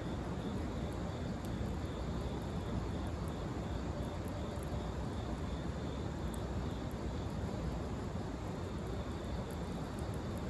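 Wood fire burning in a fire-pit stand: a steady low rush with faint, scattered crackles.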